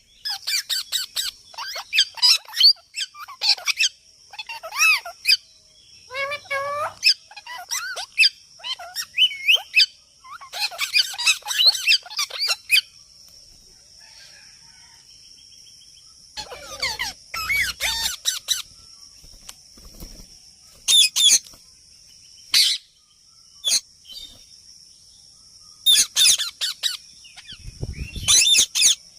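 Parrot calling in bursts of sharp chirps and squawks, with some warbled, gliding calls between long pauses.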